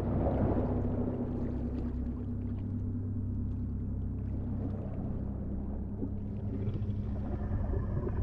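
Deep underwater ambience: a steady low rumble with a held low hum through it, swelling briefly at the start.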